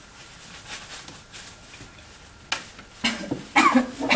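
A woman breathing hard after six minutes of maximal hyperventilation on dry gas, then coughing several times from about two and a half seconds in, the coughs louder than the breathing; the airway is dried out by the challenge.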